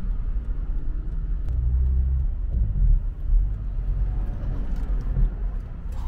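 Low, steady rumble of a car cabin: engine and road noise from the car being driven.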